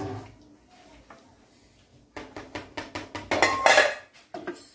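Wooden spatula knocking and scraping against the side of a metal cooking pot while stirring milky kheer: a quick run of knocks starting about two seconds in, loudest near the end.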